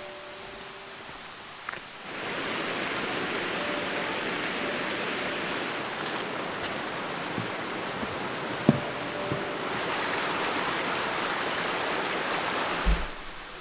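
Mountain stream rushing over rocks, a steady hiss that starts about two seconds in and cuts off shortly before the end. A single sharp knock comes near the middle.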